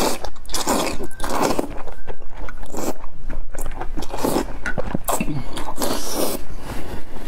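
Close-miked eating: a person slurping strands of food from spicy broth and chewing a mouthful of beef and enoki mushrooms, a steady run of short wet slurps and chews several times a second.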